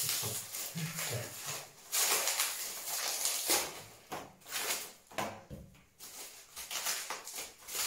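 Clear plastic lure packaging bag crinkling and rustling as it is handled and pulled open, in irregular spells with short pauses between them.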